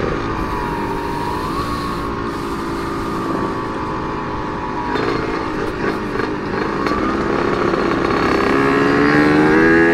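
Yamaha RX King single-cylinder two-stroke motorcycle with an aftermarket CRC Series exhaust, ridden at low revs, then revving higher as it accelerates over the last few seconds, over a steady low wind rumble.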